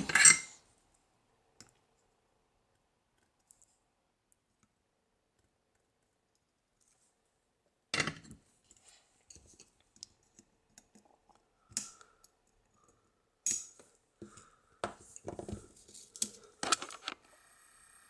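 Near silence for several seconds. Then a few sharp clicks from flush side cutters snipping the wire leads of a glass-bodied diode on a circuit board, with small handling sounds of the board between the snips.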